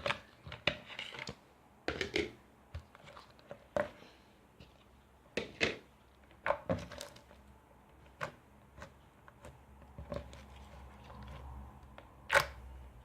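Purple slime being squeezed and played with by hand, giving short, irregular clicks and pops, the loudest near the end.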